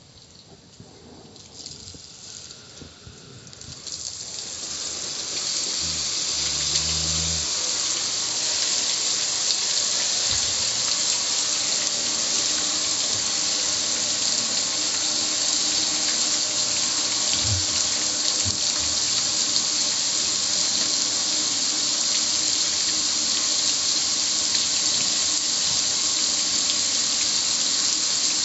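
Water spraying from a garden hose onto the metal lid and control panel of a gas grill: a steady hiss that starts about four seconds in, builds over a few seconds, then holds.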